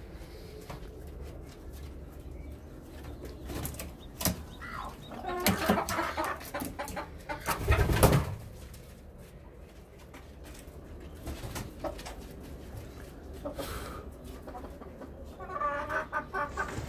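Domestic chickens clucking now and then, with a few sharp clicks and one louder knock about eight seconds in.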